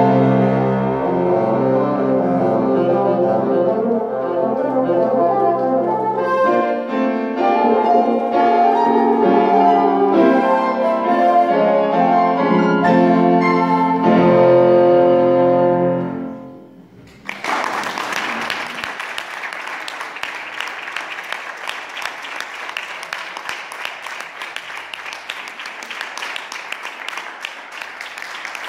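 Bassoon and piano playing a classical piece that closes on a long held final note about halfway through. After a brief pause, an audience applauds steadily to the end.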